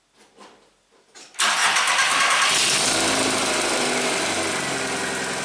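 A few faint clicks, then a Mk4 VW Golf's 2.0-litre four-cylinder engine, turned over by a newly fitted starter and ignition switch, fires at once about a second and a half in and runs on at a steady idle that eases slightly. The quick start shows that the new starter and ignition switch work.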